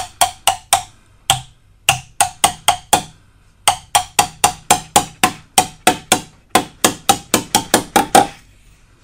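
Small hammer tapping an aluminium wall profile, bending it back into place to set the gap for a stretch ceiling. Quick light strikes, about four or five a second, come in runs broken by short pauses, each with a short metallic ring. The tapping stops near the end.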